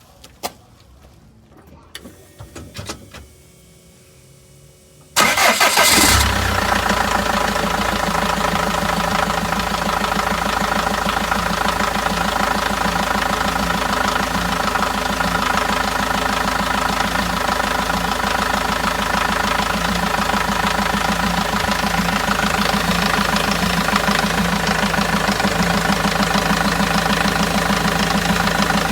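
Renault Master's G9T dCi diesel engine with a newly fitted belt tensioner, pulley and auxiliary belt being started. A few faint clicks, then about five seconds in it cranks briefly and fires, settling into a steady idle.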